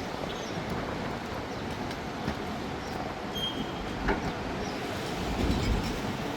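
Steady low rumbling background noise with a couple of short sharp knocks, about two and four seconds in.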